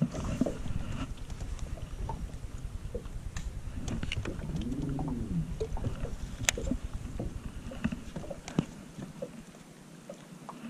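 Low rumble of small waves slapping against an aluminum boat's hull, with scattered clicks from a baitcasting rod and reel being handled. About halfway there is a short tone that rises and falls in pitch, and the rumble dies down near the end.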